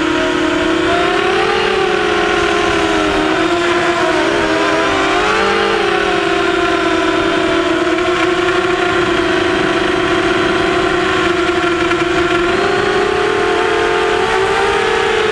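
Quadcopter's four Sunnysky 2300kv brushless motors and propellers whining close to the onboard camera, the pitch swinging up and down with throttle changes and holding steady through the middle.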